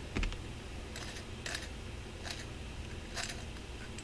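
Small metal hand tools being handled and set down on a workbench: a soft knock just after the start, then a few light metallic clicks spaced about a second apart.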